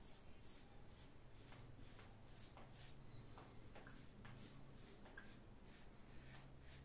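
Mühle R41 safety razor with a PermaSharp blade scraping through lathered stubble in short, faint strokes, about two to three a second, during the first pass of a wet shave.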